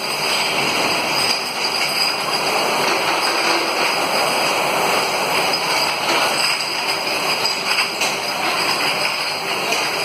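Liquor glass bottle washing machine running: a steady, dense mechanical clatter.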